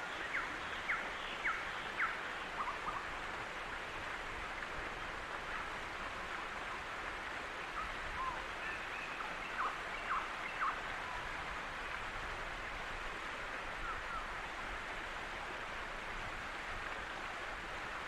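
Steady rush of a waterfall and stream, with brief bird chirps in two short runs, one near the start and another about halfway through.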